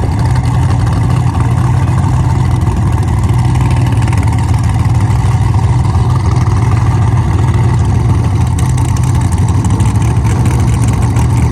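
Vehicle engine running steadily with a low, unchanging drone.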